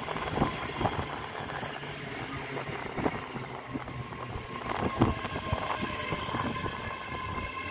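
ScotRail Class 385 electric multiple unit moving along the platform close by, a steady electric whine over a rumble of wheels with irregular knocks from the running gear. Wind buffets the microphone.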